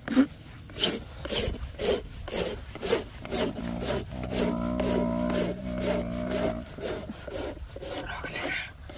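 Coarse steel file rasping back and forth along a young Murrah buffalo's horn to shape it, about three scraping strokes a second. From about four to nearly seven seconds in, a low, steady drawn-out tone sounds under the strokes.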